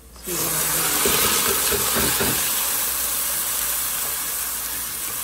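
Washed, soaked rice tipped into a pot of hot oil and browned onions, setting off a loud sizzle and hiss of steam that starts suddenly a moment in and slowly dies down.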